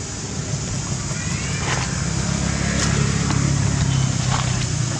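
A motor vehicle passing, its low engine hum swelling over a couple of seconds and easing off near the end.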